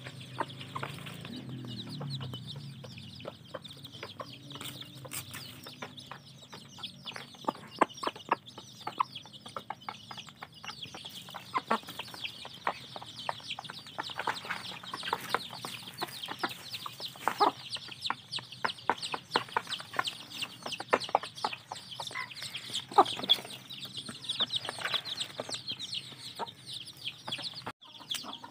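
Kampung chicks peeping without pause while the adult hen and rooster cluck, with frequent sharp ticks of beaks pecking grain from a metal feeding trough.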